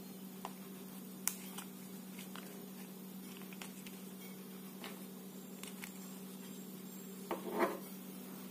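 Hard plastic toy truck parts handled and pulled apart: scattered light clicks and taps, then a louder rattling clatter of plastic pieces about seven and a half seconds in, over a steady low hum.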